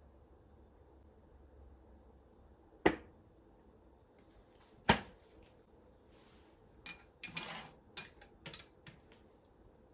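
Kitchen items being handled and set down: two sharp knocks about two seconds apart, then a run of lighter clicks and a short scrape near the end.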